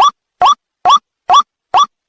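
White-breasted waterhen giving its 'ruak-ruak' call: short upward-sliding notes repeated evenly, a little over two a second.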